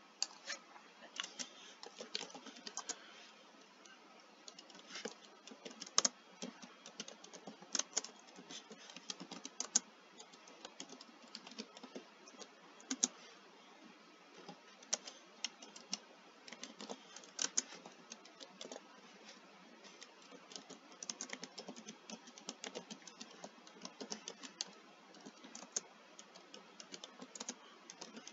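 Typing on a computer keyboard: irregular clicking keystrokes with short pauses between bursts.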